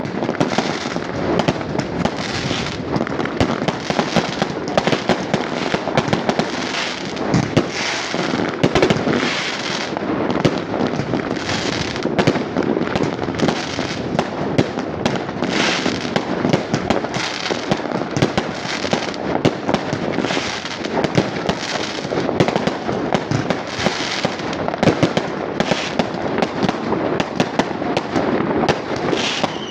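Fireworks going off without a break: many bangs and crackles overlapping one after another.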